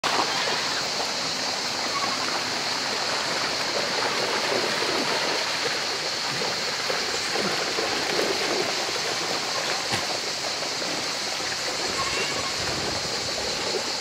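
Shallow river rushing steadily over stones, with irregular splashing as a herd of goats wades through the water.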